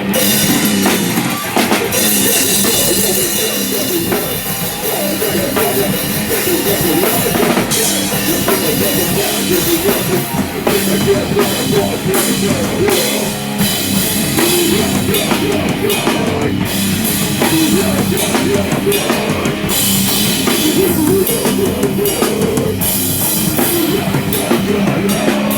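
Live heavy rock band playing loud and without a break, with a busy drum kit driving hard under distorted guitars and bass.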